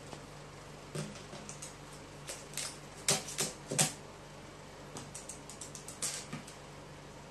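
A crow's beak and claws tapping on a sheet-metal tabletop as it pecks around a tipped-over paper crisp can: irregular light clicks, loudest in a quick run of taps about three to four seconds in. A low steady hum sits underneath.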